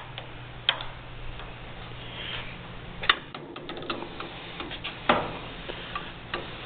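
Scattered light metal clicks and knocks as the lathe's tailstock is handled, with a small run of quick ticks in the middle and one louder knock, over a faint steady hum.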